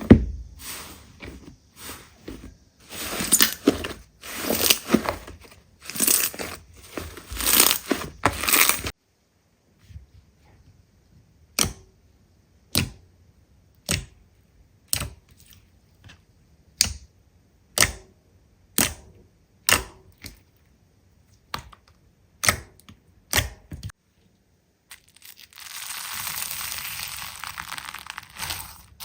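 Slime being squeezed and worked by hand, with crackling, crunchy squishing for the first several seconds. Then a run of separate sharp pops about once a second, and a steady rustling hiss near the end.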